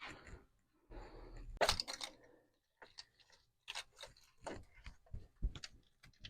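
Clicks, knocks and scraping as the fuel rail of a 3.7L Jeep V6 is pried up and worked loose with its injectors. There is a rustling scrape about a second in and scattered sharp clicks after it.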